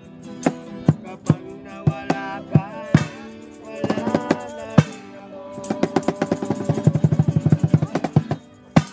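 Acoustic guitar strumming with a steady beat of stick-struck percussion. In the second half the beat speeds into a fast drum roll, and the song ends on a final hit just before the end.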